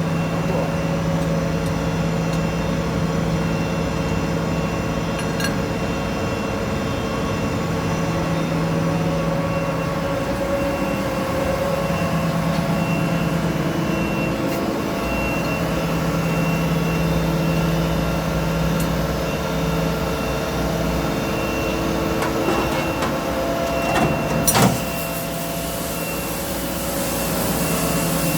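Machine tool running steadily, its low motor hum coming and going every few seconds. A single sharp knock about 24 seconds in.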